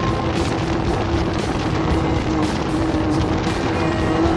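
Music with a steady beat, mixed with a vehicle engine running at a steady speed.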